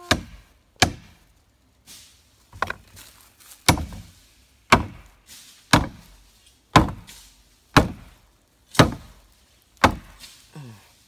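Hammer striking wood in steady, evenly spaced blows, about one a second, eleven in all, each a sharp knock with a short ring.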